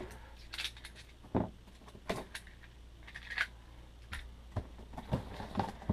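Scattered clicks and scrapes of a cardboard box being cut open with a knife and handled.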